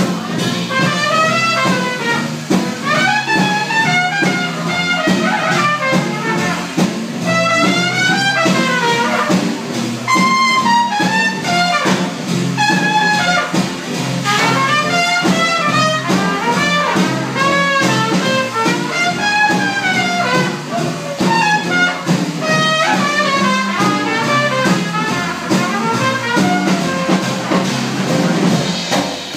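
A small trad jazz band playing an instrumental passage. A trumpet carries the melody over upright bass and guitar.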